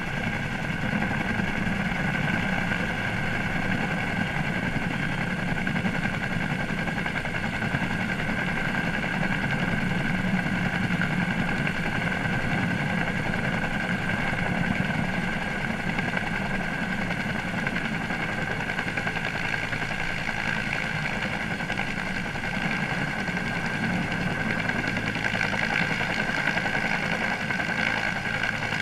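Helicopter flying steadily with a bridge-deck load slung beneath it: a low rumble under a steady high whine.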